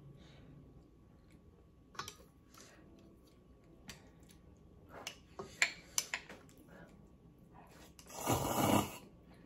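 Chopsticks clicking and tapping against a metal pot and a cup while lifting ramen noodles, then a loud slurp of noodles lasting under a second near the end.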